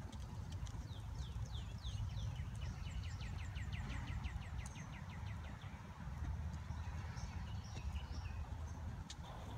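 A horse's hoofbeats on arena sand over a steady low rumble, while a bird sings a long trill of quick falling notes that speeds up from about a second in.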